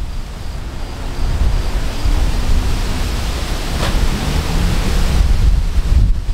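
Strong gusty wind, with gusts of about 30–35 mph, buffeting the microphone with a heavy low rumble and shaking the leaves of a tree.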